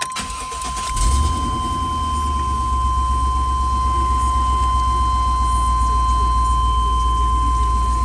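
Chevy Tahoe's 5.7-litre V8 started up: a brief crank, catching about a second in, then idling steadily. A steady high tone sounds throughout.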